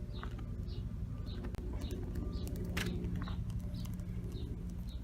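A bird chirping outdoors, a short high note repeated about twice a second, over a steady low hum, with a single sharp click a little past the middle.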